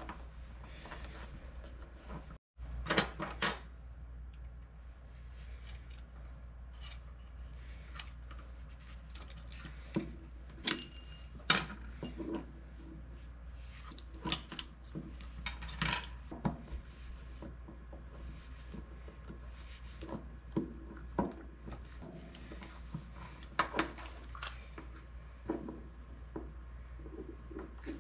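Small hand tools clicking and scraping on the soft metal housing of a speedometer speed sensor as its crimped edge is pried up and the plastic connector is worked out. Irregular sharp metal clicks and clinks, some louder than others, over a steady low hum.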